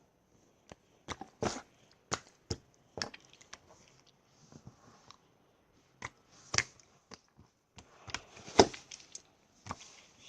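Clear slime being squeezed and pressed by hand, giving irregular sharp clicks and pops, with one louder pop about two-thirds of the way through.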